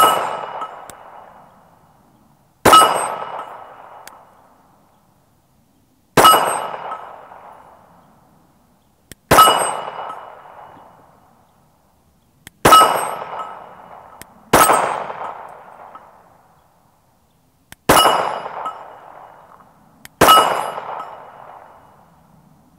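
Glock 48 9mm pistol fired in slow, deliberate single shots, about eight of them two to three and a half seconds apart. Each sharp crack is followed by a decaying metallic ring from steel targets being hit.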